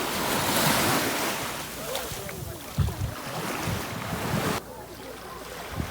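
Sea waves washing and splashing, with wind buffeting the microphone in low rumbling gusts. The rushing noise drops off suddenly about four and a half seconds in.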